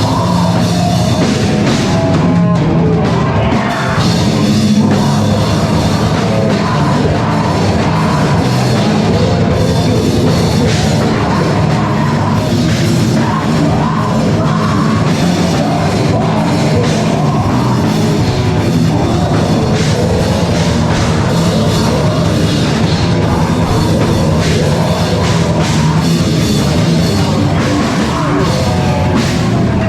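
A rock band playing live and loud: heavy guitars and a drum kit in one dense, unbroken wall of sound.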